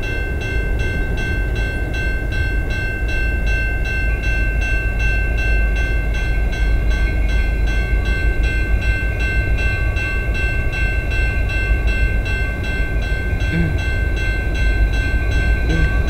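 Railway grade-crossing bell ringing steadily, about three strikes a second, as the crossing signals warn of an approaching train, over a low rumble.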